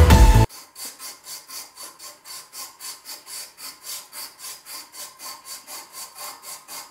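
Strip of abrasive emery cloth pulled back and forth around a freshly milled cam lobe, shoe-shine style, in even rubbing strokes about four times a second, smoothing the milling marks before grinding.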